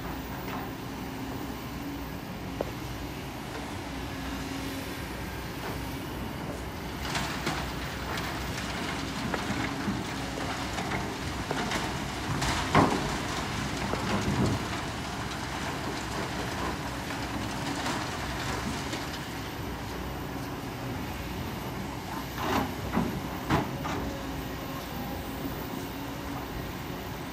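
Kobelco SK200 excavator's diesel engine running steadily under load, with scattered clanks and thuds as the bucket digs and dumps sand and stones onto a slatted screen. The loudest knock comes about halfway through, with a cluster of clanks near the end.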